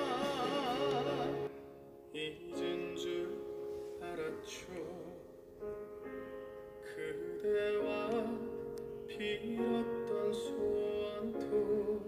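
Background music: a song with a voice singing held, wavering notes over instrumental accompaniment.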